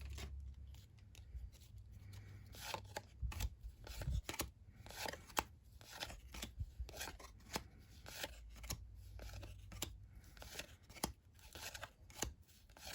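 1990-91 NBA Hoops trading cards being handled and flipped through by hand: a quiet string of short, irregular card-on-card slides and flicks, a few each second.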